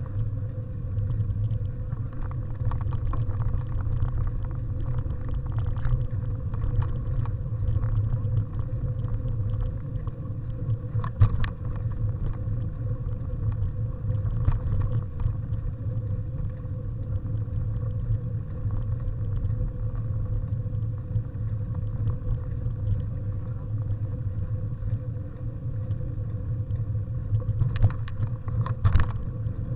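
Bicycle riding over a gravel dirt track: a steady low rumble of tyres and riding vibration, with sharp knocks from bumps about eleven seconds in and twice near the end.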